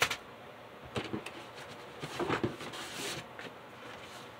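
Handling noise: scattered light knocks and rustling of cardboard and plastic bags as hands rummage in a cardboard carton and lift out a small cardboard box of model-railway track pieces.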